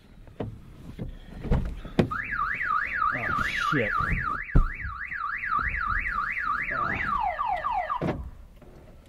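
Car alarm going off: a siren tone sweeping up and down about three times a second, which after about five seconds switches to a run of quickly falling chirps and then stops. A few knocks and thumps come before it starts.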